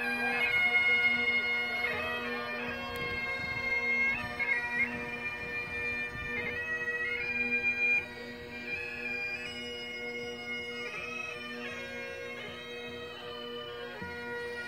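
Bagpipes playing a tune over their steady drone, the melody moving between held notes with quick ornaments. The sound gets clearly quieter about eight seconds in.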